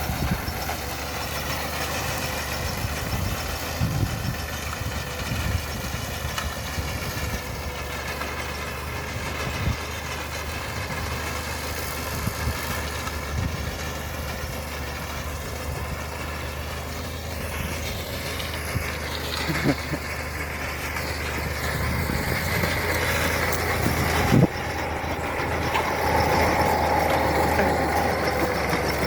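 Engine of a grain-cutting machine running steadily as it cuts a cereal crop, getting louder over the last several seconds.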